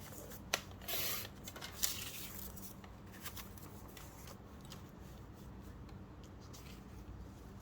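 Paper being trimmed and handled: a few sharp clicks and a brief rasping cut through the sheet about a second in, then lighter paper rustling and small ticks.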